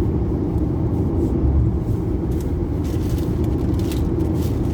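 Steady low rumble of a car heard from inside the cabin, with a few faint brief clicks.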